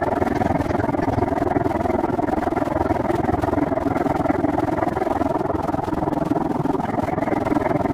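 Steady rushing noise from a bicycle in motion, with no distinct events: the wind and rolling noise of a ride.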